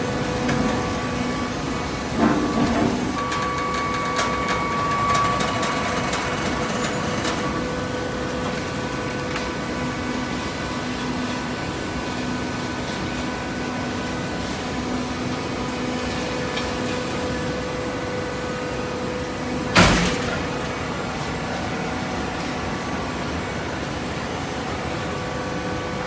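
Vertical hydraulic waste-paper baler running with a steady humming drone, with a light knock about two seconds in and one sharp, loud metallic clank near the end.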